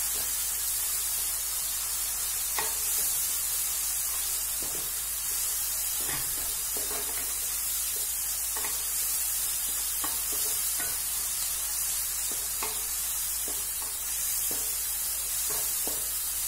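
Sliced onions and tomatoes sizzling in oil in a non-stick kadai, with a wooden spatula scraping and knocking against the pan in irregular strokes about once a second as they are stirred. They are being sautéed until soft.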